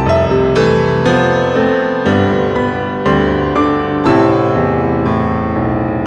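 Background piano music: a slow melody with a new note struck about every half second, each note ringing on as it fades.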